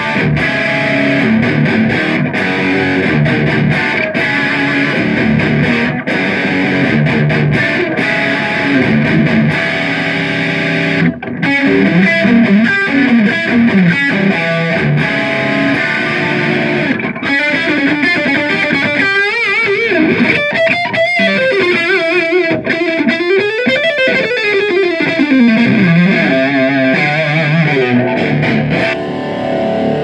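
Heavily distorted high-gain electric guitar played through a Mesa Boogie Single Rectifier Series 2 tube amp, in a metal style. It opens with chord riffing for about the first ten seconds, then moves to single-note lead lines with slides and wavering vibrato. It thins out at the very end.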